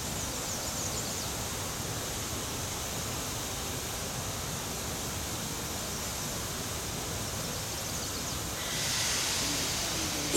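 Steady rushing outdoor noise, then near the end a louder hiss as a steam locomotive vents steam.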